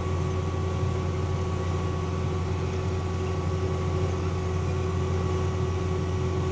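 Tractor engine running steadily under load while pulling an air seeder through the paddock: an even, deep drone with a few steady whines above it.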